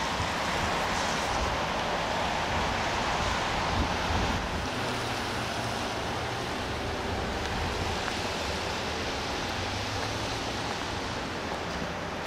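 Steady city street noise of traffic going by, with a passing vehicle's sound swelling and fading over the first few seconds.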